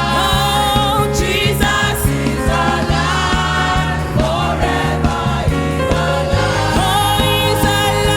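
Youth gospel choir singing with band accompaniment: voices held in harmony over a steady bass and beat.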